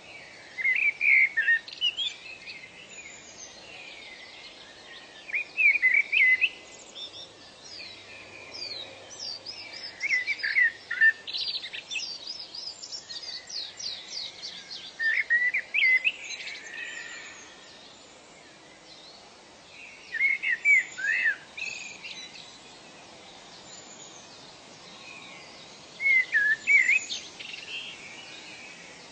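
Songbirds singing: one bird repeats a short phrase of quick sweeping notes about every five seconds, while other birds call higher and fainter in between. A faint steady background hiss lies under it all.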